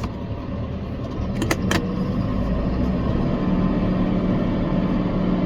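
Tractor engine running steadily under way across a field, with two sharp clicks about a second and a half in.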